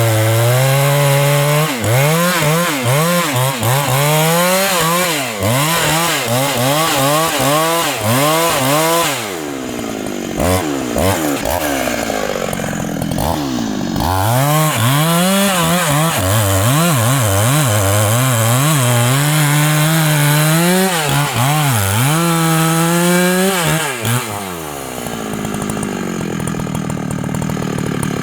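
Large Husqvarna two-stroke chainsaw cutting into the trunk of a big rain tree, its engine pitch dipping and recovering again and again as the chain bogs in the wood. About nine seconds in the revs sag lower for a few seconds before running back up, and near the end the saw eases off to a lower speed.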